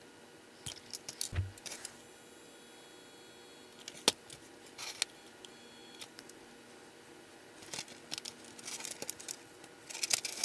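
Small handling sounds of wires and metal parts on a brass HO scale locomotive chassis: scattered light clicks and rustles as old wiring is pulled out, with one sharp click about four seconds in and a busier cluster near the end.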